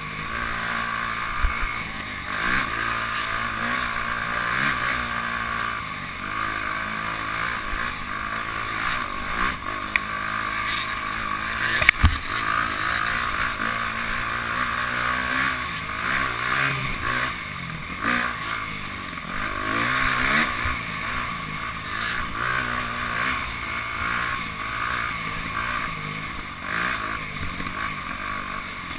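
Dirt bike engine running close up, its pitch rising and falling as the throttle opens and closes, with a sharp knock about twelve seconds in.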